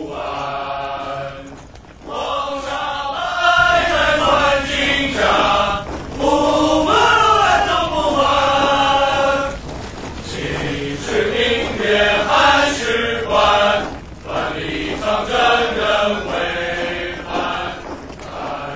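Male voices chanting a verse in long, drawn-out sung phrases, with short pauses between the phrases.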